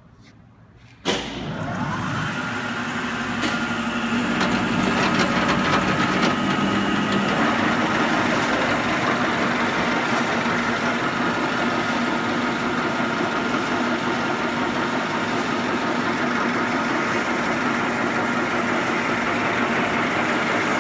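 Blanchard No. 18 rotary surface grinder switched on about a second in, its motors running up over a few seconds and then running steadily.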